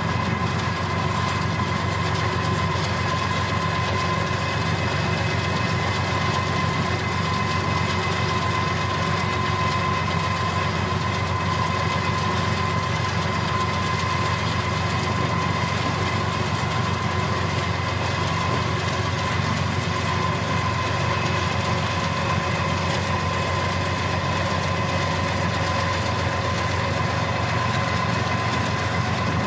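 CSX diesel freight locomotives running steadily at track speed, heard from a car pacing alongside: a constant low engine drone with a steady high whine over it.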